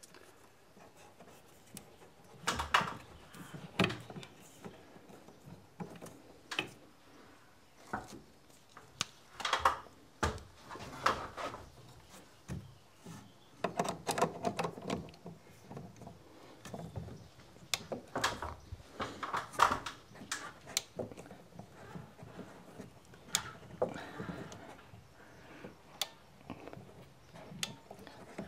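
Scattered clicks, knocks and rubbing from a hand PEX crimp tool and pipe fitting being handled and worked overhead, at irregular intervals with short gaps between.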